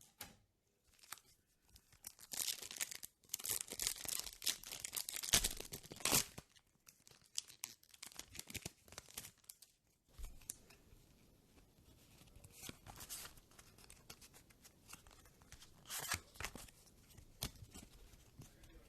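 Foil wrapper of a Pokémon trading card booster pack being torn open, loudest a few seconds in. After that come quieter crinkling of the wrapper and the rustle of cards being handled.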